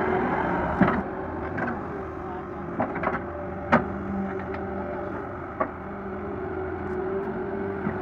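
Diesel engine of a Doosan 140W wheeled excavator running steadily while it digs, with several short sharp knocks over the engine.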